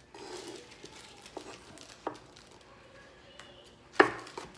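Chef's knife chopping jalapeño peppers on a wooden cutting board: a few sparse knife strikes on the board, with the loudest, sharpest one about four seconds in.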